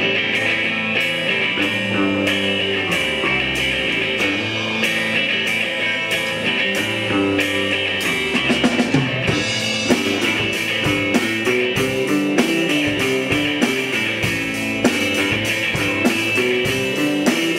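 Live rock band of electric guitar, bass guitar and drum kit playing a passage without vocals, over a steady drumbeat.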